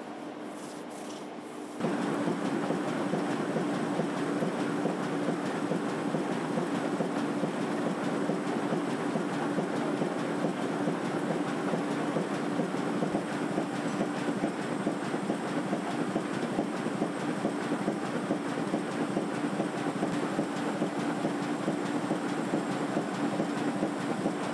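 Banknote printing press running: a steady, dense mechanical clatter with a constant hum, cutting in abruptly about two seconds in. Before that, a few short brushing sounds over quieter machine noise.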